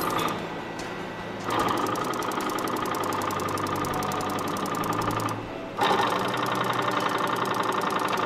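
Factory machinery on an electric kettle production line running with a rapid, even mechanical clatter. It is quieter for the first second and a half, then runs loud, dips briefly about five and a half seconds in, and starts up again.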